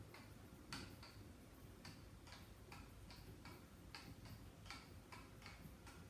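Hand-cranked printmaking press running its bed back through the rollers, giving faint, quick clicks about three a second as the wheel is turned.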